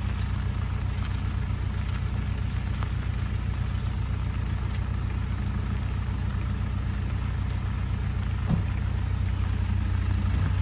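Toyota Hilux pickup engine idling steadily, a little louder for the last couple of seconds.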